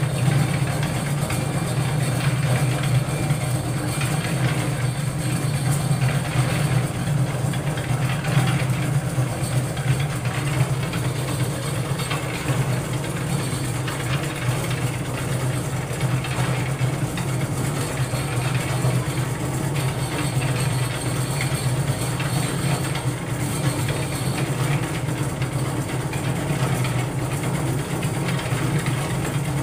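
Portable concrete mixer's motor running steadily, turning the drum as the mix is churned, with an even low hum.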